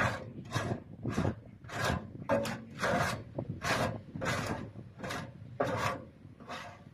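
Soil being stirred and scraped with a long-handled tool in a wheelbarrow, in short rasping strokes about two a second.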